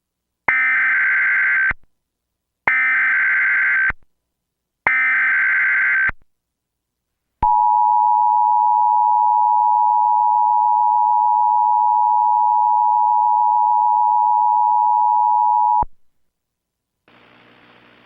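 Emergency Alert System signal marking the start of a new tornado warning: three short bursts of the warbling SAME digital header, about a second apart, then the two-tone attention signal held for about eight seconds and cut off sharply. Near the end a faint hiss with a low hum begins.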